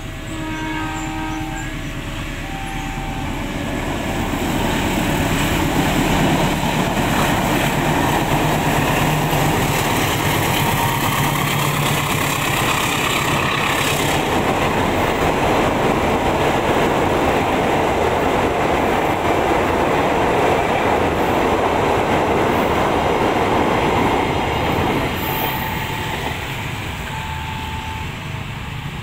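Passenger train rolling over a steel truss railway bridge: a loud, even rumble of wheels and coaches that builds over the first few seconds, holds for about twenty seconds, then fades near the end. At the start, and again after the train has passed, a level-crossing warning signal sounds in short alternating tones.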